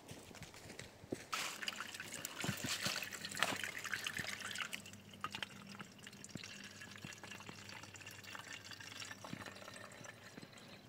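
Water trickling and dripping as a water container is filled, with small knocks and splashes, loudest for a few seconds after it starts about a second in, then quieter. A faint steady low hum lies underneath.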